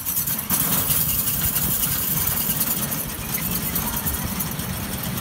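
Small engine of a 7¼-inch gauge miniature diesel-outline locomotive running steadily as it pulls its passenger train away, getting louder about half a second in.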